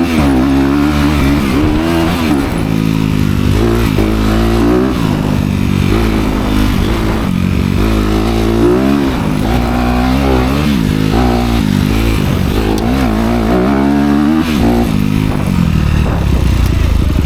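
Honda CRF250R four-stroke dirt bike engine through its dual exhaust pipes, revving up and down over and over as the rider works the throttle, with no steady idle in between.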